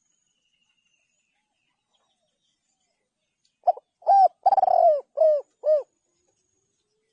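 Spotted dove cooing: one phrase of five coos about halfway through, a short first note, then the longest in the middle, then two shorter ones.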